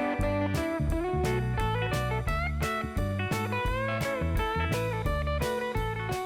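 Outro music: a blues tune on electric guitar with sliding notes over a steady beat.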